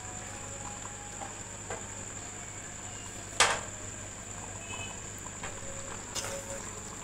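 Pot of rice and chickpeas boiling hard in its cooking water, a steady bubbling hiss. One sharp knock sounds about three and a half seconds in.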